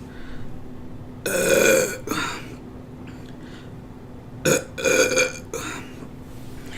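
A person burping after gulping carbonated cola. One long burp comes about a second in with a short trailing one, then about three shorter burps in quick succession near the end.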